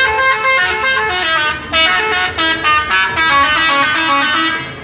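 Multi-tone musical "telolet" horn of an intercity coach playing a quick tune of short stepped notes. The tune dips briefly near the end.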